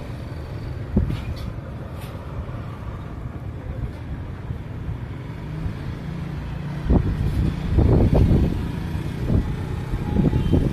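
Wind buffeting the microphone over a low, steady outdoor rumble, the gusts growing stronger and more uneven from about seven seconds in.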